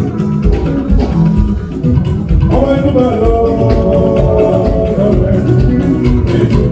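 Jùjú band music playing steadily, with plucked guitars over a driving percussion beat; a sung vocal line comes in about two and a half seconds in.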